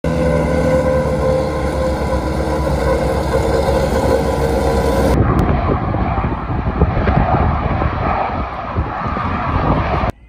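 A small diesel switcher locomotive's engine running, with a low rumble and steady tones for about five seconds. Then a sudden change to the rushing jet noise of two fighter jets flying past in formation, which cuts off just before the end.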